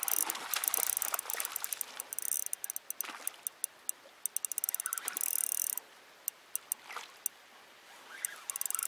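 Fishing reel cranked in bursts during a lure retrieve, a rapid fine ticking that stops and starts again twice, with a few single knocks in the pauses.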